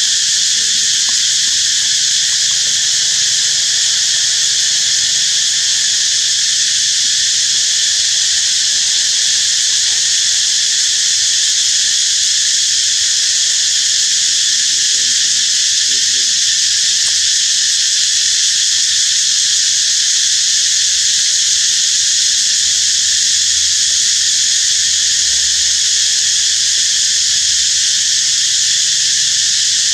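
Dense insect chorus: a loud, steady, high-pitched drone that does not change.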